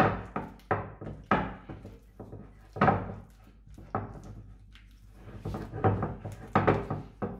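A spatula mashing a thick gorgonzola and mascarpone mix in a glass bowl that stands on a wooden cutting board, giving a string of irregular knocks, several a second, with a short lull in the middle.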